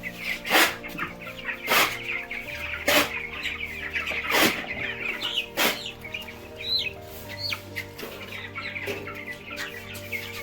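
A flock of young broiler chickens clucking and peeping, with five sharp noises about a second apart in the first half.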